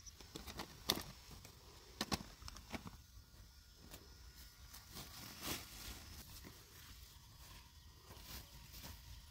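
Scattered handling noises: cloth and plastic rustling as things are moved about on a tarp, with a few short sharp clicks and taps, the loudest about one and two seconds in.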